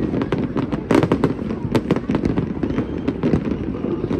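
Aerial fireworks bursting in a rapid, irregular string of bangs and crackles, with the densest, loudest cluster about a second in.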